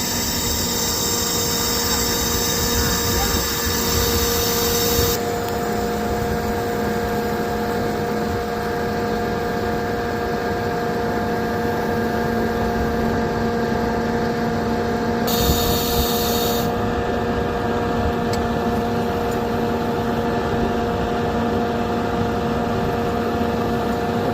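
Serco log loader's hydraulics, powered off the running truck engine, making a steady whine and hum while the loader lifts and swings a load. A higher hiss cuts off about five seconds in and returns briefly around fifteen seconds, as the controls are worked.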